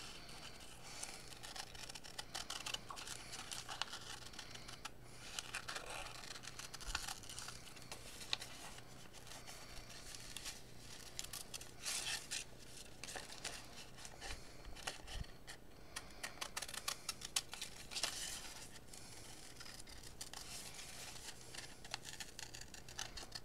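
Scissors snipping through wax paper fused with melted crayon, in many short, irregular cuts, with the stiff sheets crinkling as they are turned.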